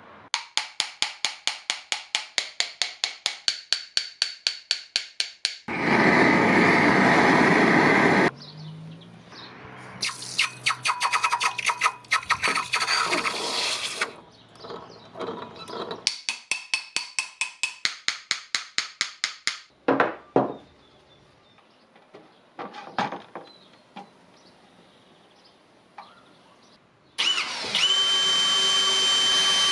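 Workshop tool sounds in several spells. There are fast, even strokes at about five or six a second, a few seconds of steady rushing noise, scattered scrapes, and near the end a small power tool running with a steady high whine.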